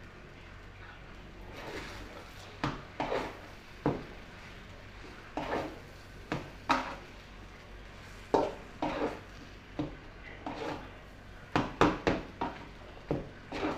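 A large metal spoon scraping and clanking against a stainless steel wok as rice is stir-fried and tossed. The strikes are irregular, often coming two or three in quick succession.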